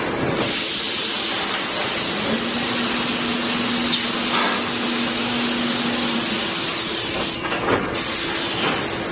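Automatic plywood double-size edge-trimming saw machine running: a steady whirr of its saw motors, with an added hum that comes in about two seconds in and stops about six seconds in.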